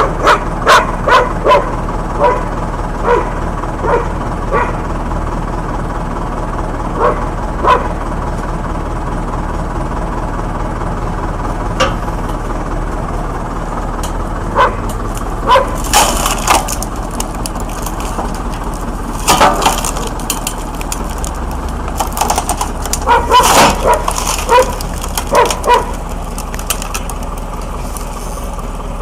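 A dog barking in short, repeated barks, with a few sharp cracks in the middle and latter part, over a steady low hum.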